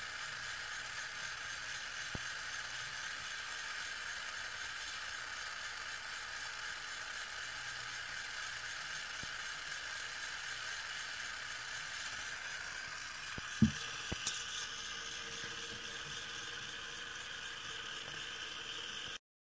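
Small electric motor of a 1988 Hallmark Country Express light-and-motion ornament running with a steady whir as its miniature train circles the track. About two-thirds of the way through comes a single sharp thump, then a couple of light clicks.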